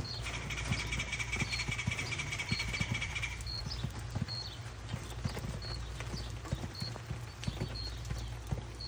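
Rainy-day ambience: water drops tapping in irregular small knocks, with a cricket chirping about once a second. A pulsing insect buzz sounds over it for the first three seconds or so, and a low steady rumble runs underneath.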